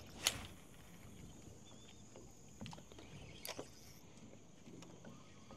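A few short sharp clicks or knocks over a faint steady hiss, the loudest about a quarter of a second in and two more around the middle.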